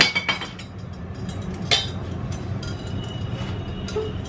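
A steady low hum and rumble from a running kitchen appliance, with a few light clinks of utensils over it.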